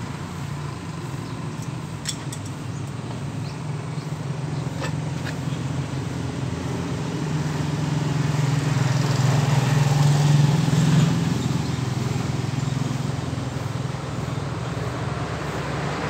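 A motor vehicle engine running steadily, growing louder about ten seconds in and then easing off, with a couple of light clicks in the first few seconds.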